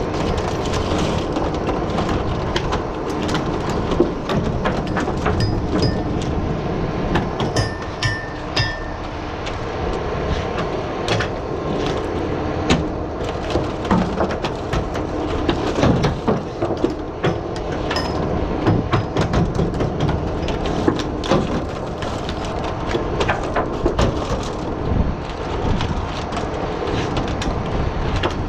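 Workboat engine running steadily, with frequent clattering knocks of oyster shells being culled and sorted on a wooden culling board.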